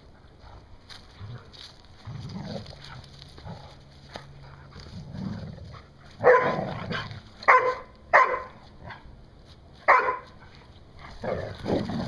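Two Labradors growling and barking while playing tug-of-war with a fleece rope toy. Low rumbling growls come and go, and four sharp barks stand out between about halfway and near the end.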